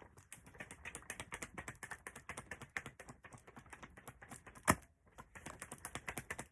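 Fast, irregular clicking and tapping from hands handling small objects, with one louder click about four and a half seconds in; it cuts off suddenly at the end.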